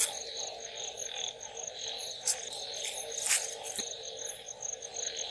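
Night insects chirping in a steady high pulse, about five chirps a second, with two short sharp knocks about two and three seconds in.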